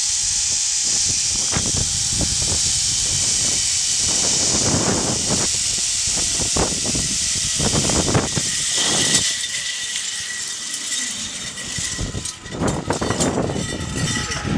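Zip-line trolley pulleys running fast along the steel cable with wind rushing over the microphone: a steady high hiss, with a faint whine that slowly drops in pitch. About eight seconds in the hiss thins out and gives way to irregular knocks and gusty rustling as the ride nears its end.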